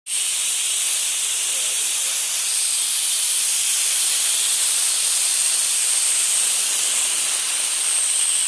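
Steady, loud hiss of compressed air rushing through a pneumatic drum-top oil extractor as it pulls a vacuum on a 50-gallon metal drum to draw liquid in. The hiss cuts in suddenly.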